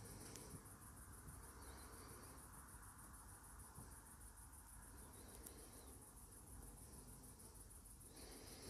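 Near silence with the faint, steady high-pitched chirring of crickets, pulsing fast and evenly.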